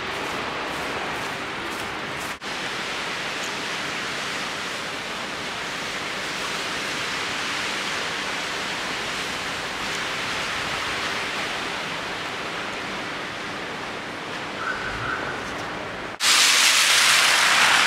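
Steady outdoor hiss of street ambience in falling snow, with no clear single source. It breaks off for an instant about two seconds in, and near the end it gives way to a much louder rushing noise.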